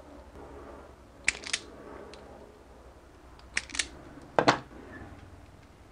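Sharp clicks in pairs from wire cutters snipping thin automotive wires, then a heavier knock about four and a half seconds in as a hand tool is set down on the wooden workbench.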